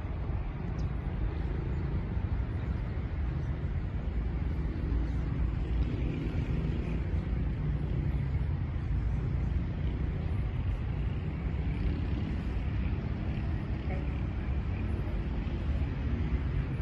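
Outdoor ambience: a steady low rumble with faint voices of people in the distance.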